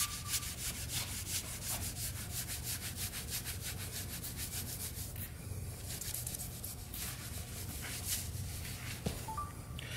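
White cloth rag rubbed quickly back and forth on a UV-cured top coat over concrete, a scrubbing hiss of rapid, repeated strokes, as black forklift tyre marks are wiped off the floor.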